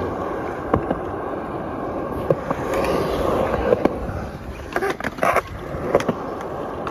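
Skateboard wheels rolling over a concrete skatepark surface, a steady rolling noise broken by sharp clicks about once a second.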